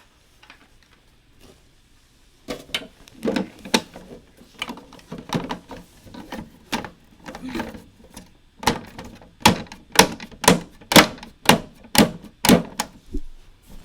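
Hard plastic model-kit parts knocking and clicking irregularly as tight-fitting pieces are handled and pressed together by hand. The knocks come faster and louder in the second half.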